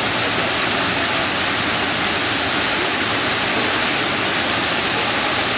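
Steady, loud rushing noise, even and unbroken, with faint traces of voices beneath it.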